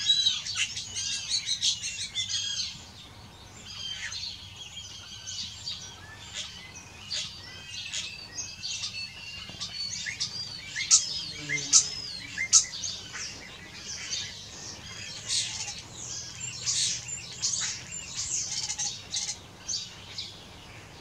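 Common starlings singing: a fast, unbroken jumble of whistles, rising and falling squeaky notes and clicks, with a few sharp louder clicks a little past the middle.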